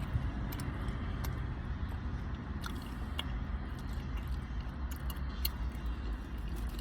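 Close-up chewing of sticky mochi with bean-paste filling: soft wet mouth clicks and smacks scattered through, over a steady low rumble.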